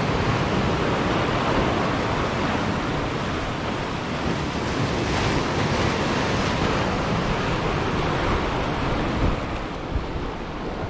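Sea surf breaking and washing over rocks at the shoreline: a steady rushing wash that swells and ebbs as the waves come in.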